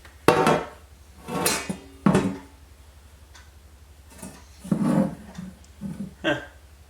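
Sheet-metal computer case side panel clanking and rattling as it is pushed and slid onto the tower, in several separate knocks and scrapes.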